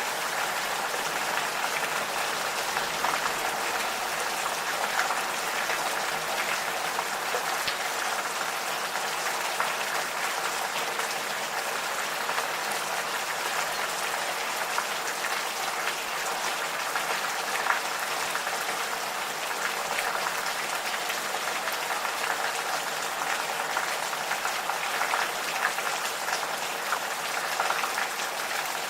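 Gentle rain falling steadily, with many small ticks of single drops landing close by.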